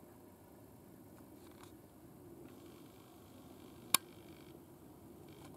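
Faint steady background noise with one sharp, very short click about four seconds in, and a couple of much fainter ticks.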